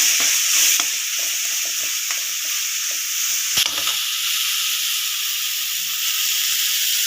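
Chopped vegetables sizzling in hot oil in a pan, stirred with a spoon: scraping strokes against the pan for the first few seconds and one sharp knock about three and a half seconds in, then a steady sizzle.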